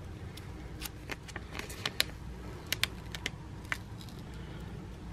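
Scattered light clicks and crackles of a vinyl decal and its plastic transfer sheet being handled, a few sharper ones about two to three seconds in.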